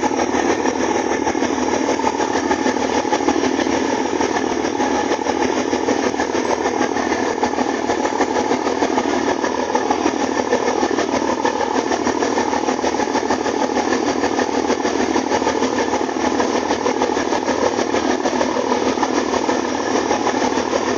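A boat's engine running steadily under way, mixed with the rush of water churning in its wake.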